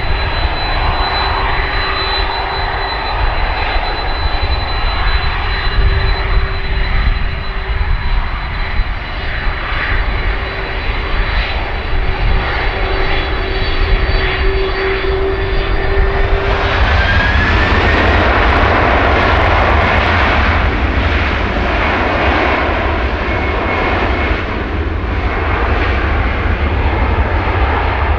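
Jet airliner engines running loud and steady, with a held whine in two pitches. About two-thirds of the way in the sound changes abruptly to a fuller rushing noise, with a tone that rises briefly.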